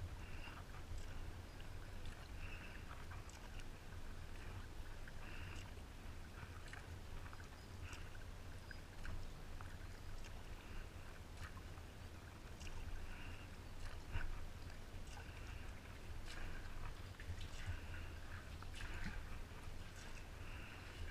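Kayak paddle strokes in calm water: the blade dipping and pulling, with small splashes and drips every second or two, over a steady low rumble.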